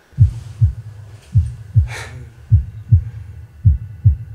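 Heartbeat sound effect: four low double thumps (lub-dub), about one a second, the kind used to build suspense before a reveal.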